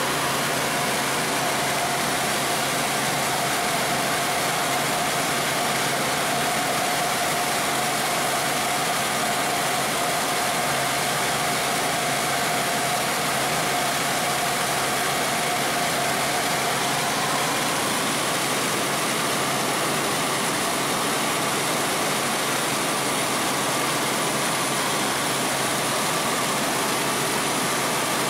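Helicopter in flight heard from inside the cabin: a steady, even engine and rotor noise, with a faint whine that shifts higher about two-thirds of the way through.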